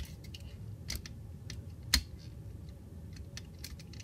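Small plastic clicks and light rattling from the parts of a Transformers Power of the Primes Hun-Gurrr action figure being worked by hand during transformation, with one sharper click about two seconds in.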